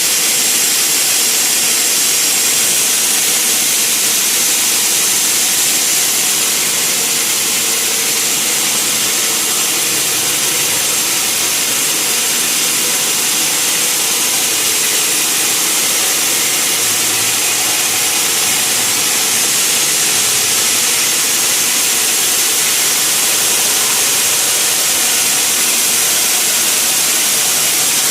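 Sawmill machinery running steadily, a loud, even, high hiss that does not change or break.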